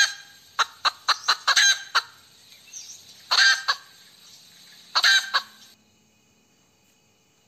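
Hen cackling: a run of quick, sharp clucks over the first two seconds, then two longer drawn-out cackles, after which the sound cuts off abruptly.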